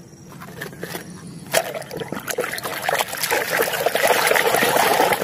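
A hand swishing a plastic toy truck through a tub of frothy muddy water, sloshing and splashing as it is washed. It starts about a second and a half in and grows louder.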